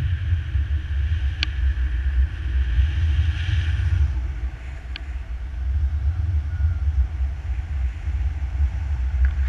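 Wind buffeting the microphone of a camera held out on a selfie stick in paraglider flight: a steady low rumble that swells and eases, with a fainter hiss above it. Two faint clicks come a few seconds apart.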